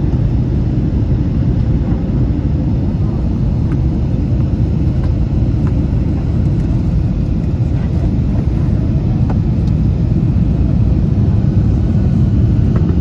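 Steady low rumble of jet engines and rushing air, heard from inside the cabin of an Airbus A321 in flight. It grows slightly louder near the end.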